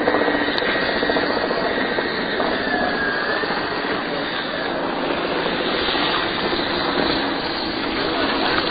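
Steady, unbroken engine roar, with a brief faint pitch glide about three seconds in.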